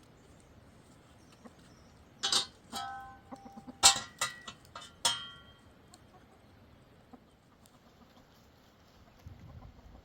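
Chickens clucking and squawking in a short flurry of sharp calls, a few with brief held notes, from about two seconds in to just past five seconds.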